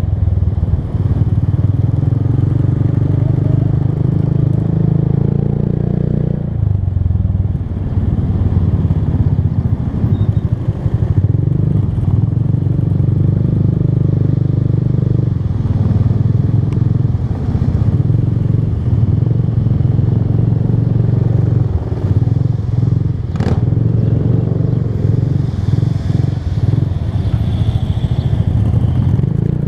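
Motorcycle engine running as the bike rides along, its note changing about six seconds in and again about fifteen seconds in as the throttle changes. A sharp click about twenty-three seconds in.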